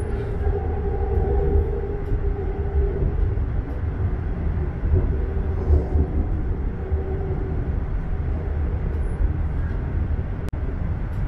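Toronto Rocket subway train running between stations, heard from inside the car: a steady low rumble of wheels on rail. A faint humming tone rides over it for the first few seconds and fades, and a single sharp click comes near the end.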